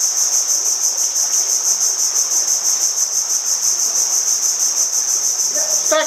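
Loud, dense chorus of insects: a steady high-pitched trill that pulses about five times a second. Near the end a few short, higher calls join in.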